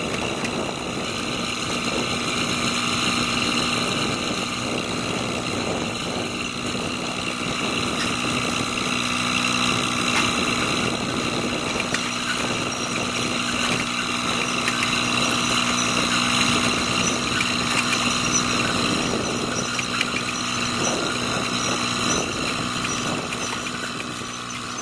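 Engine of a 2008 Boxer 425D walk-behind track loader running steadily, a constant even drone.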